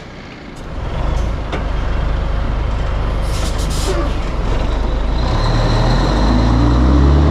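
Heavy diesel semi-truck engine pulling away. There is a short hiss of air about three seconds in, and from about five seconds the engine note climbs as the truck accelerates.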